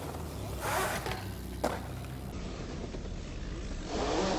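BMX bike tyres rolling and scuffing on a concrete skatepark bank as the rider goes into a nollie barspin, with a short rasping scrape under a second in, a sharp knock about a second and a half in and another scrape near the end, over a steady low rumble.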